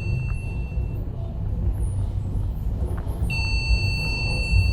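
Hydraulic passenger lift travelling, a steady low rumble from the car and its machinery. A steady high electronic tone sounds over it, stops about a second in and starts again near the end.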